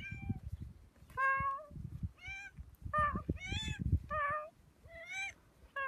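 Long-haired grey cat meowing over and over: about seven short meows in quick succession, each rising a little in pitch and then falling away.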